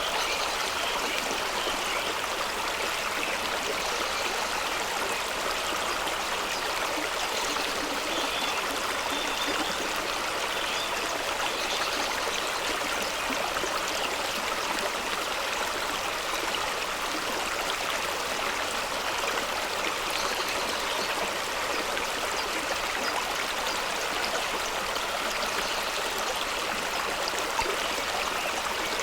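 Fast-flowing stream rushing over rocks: a steady, even sound of running water.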